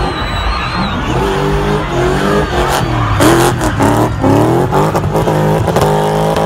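A spinning car's engine revving hard, its pitch sweeping up and down again and again, then held high near the end, over the hiss of the rear tyres spinning and sliding on the tarmac.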